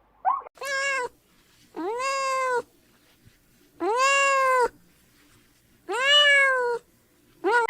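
A cat meowing: four long meows about two seconds apart, each rising then falling in pitch, with a short call at the start and another just before the end.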